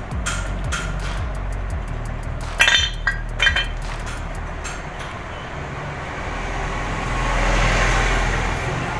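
Background hip-hop music with a steady beat and bass. A few sharp metallic clinks come about two and a half and three and a half seconds in.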